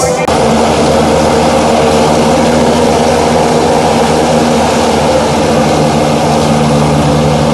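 Turboprop engines of a BAe Jetstream twin-turboprop running as the plane taxis: a steady hiss with several low humming tones underneath. The sound sets in abruptly just after the start, cutting off band music.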